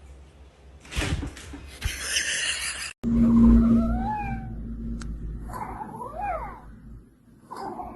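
A noisy scraping burst, then a domestic cat meowing three times, each call rising and falling in pitch.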